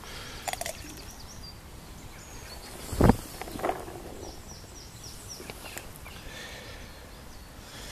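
Outdoor lakeside ambience with small birds chirping, a run of short high chirps in the middle. A sharp thump about three seconds in, the loudest sound, is followed by a softer knock.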